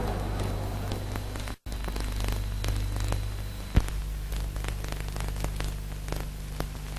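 Hum and crackle of an old 1963 film soundtrack: a steady low mains hum with scattered clicks, a brief dropout about a second and a half in, and a sharp click near four seconds.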